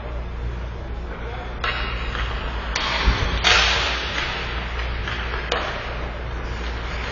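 Ice hockey play in a rink: a few sharp cracks of sticks and puck, the loudest about three and a half seconds in, followed by a hiss of skates scraping the ice.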